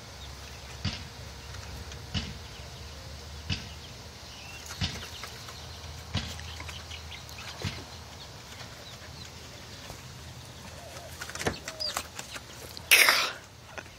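A dog barking at chickens through coop wire, single short barks about every second and a half, with a louder, noisier commotion near the end.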